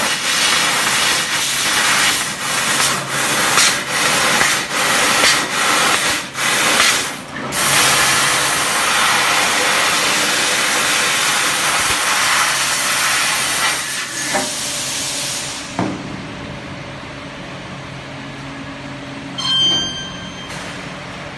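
Fiber laser cutter cutting 3 mm aluminium: a loud hiss of the assist-gas jet at the cutting head, stopping and starting many times in the first seven seconds as the head moves between cuts. The hiss then runs unbroken until about fourteen seconds in and dies away to a quieter steady machine hum.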